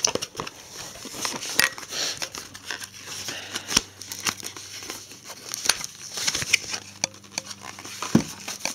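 Shipping packaging being opened by hand, with crinkling, tearing and rustling and irregular small clicks and snaps.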